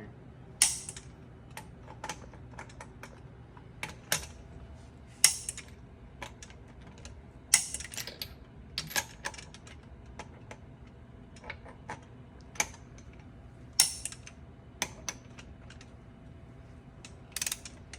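Torque wrench set to 100 foot-pounds working the wheel's lug nuts: irregular sharp clicks and ratcheting, with some louder clicks as nuts reach torque.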